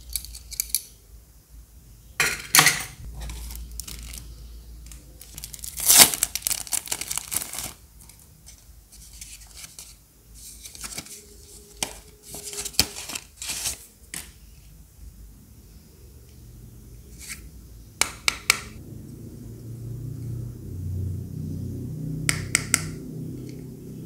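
Hands handling packaged merchandise: bursts of paper and plastic packaging crinkling and rustling, the longest and loudest about six seconds in, with scattered clicks and taps of small hard items such as an acrylic keychain and a pin badge being picked up and set down.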